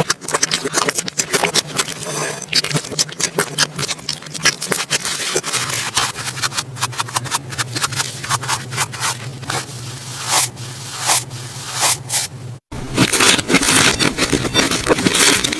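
Slime being squeezed and stretched by hand, giving a dense stream of small crackling pops and clicks over a low steady hum. It breaks off suddenly about twelve seconds in and starts again louder and denser.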